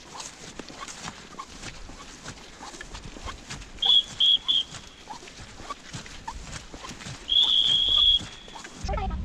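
A high, steady whistle blown three quick times about four seconds in, then once long about seven seconds in. Underneath are soft footsteps through dry grass.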